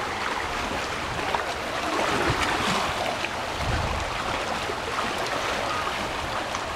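Steady wash of lake waves against a rocky shoreline.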